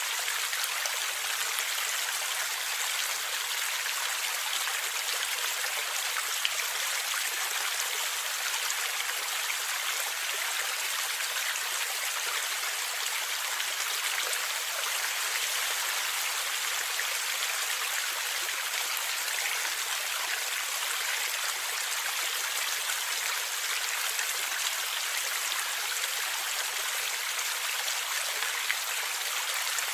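Stream water flowing and gurgling over rocks: a steady rushing hiss with fine splashes, little low rumble.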